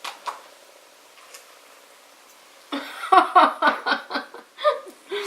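A couple of sharp clicks, then a person laughing in quick repeated bursts for about two seconds.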